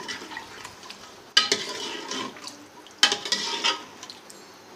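A metal ladle stirring meat and potatoes in gravy in a metal pressure cooker pot, scraping against the pot. There are light scrapes at first, then two loud strokes about a second and a half apart.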